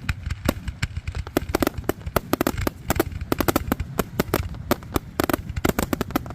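Fireworks going off in a dense, irregular run of sharp crackling pops, many cracks a second, over a low rumble.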